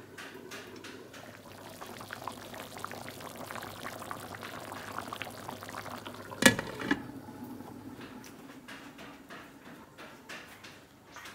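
Pot of potato-and-meat stew bubbling on the stove, a crackly bubbling that drops away after about seven seconds. A single sharp knock sounds at about six and a half seconds.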